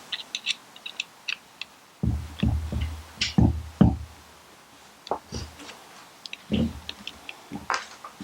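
Scattered light clicks, then a run of dull knocks about two to four seconds in and a few more near the end. These are the sounds of a polymer shotgun shell holder and its bolts being handled and lined up against a Remington 870 receiver.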